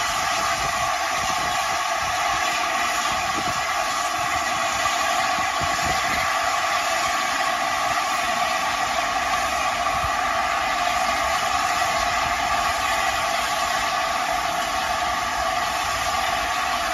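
Steam hissing steadily and loudly from the standing LNER A4 Pacific 60007 Sir Nigel Gresley, an even, unbroken rush of escaping steam.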